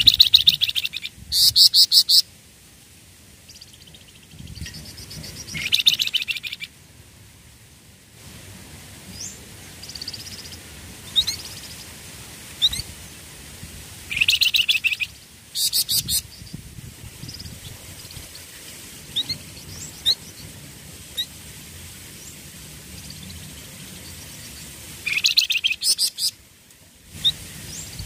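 Flamboyan songbird calling: about six loud bursts of rapid chattering notes, each lasting a second or so, with short thin chirps scattered between them.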